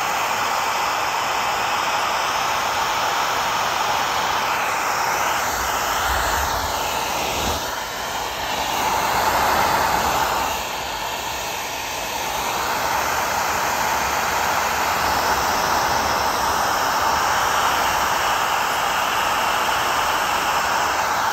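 Electric hot-air blower running steadily, its air rushing against a soft PVC inflatable to heat a stuck glue spot loose. The rush shifts in tone in the middle and swells briefly about nine seconds in.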